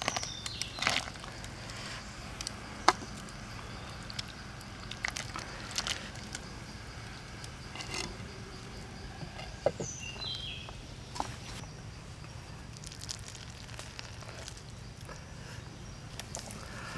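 Quiet outdoor cooking over a wood fire: scattered small clicks and knocks over a low steady hum, with a few knocks and splashes in the first second as sliced mushrooms and chilies are tipped from a bowl into a clay pot of simmering water. A brief falling chirp sounds about ten seconds in.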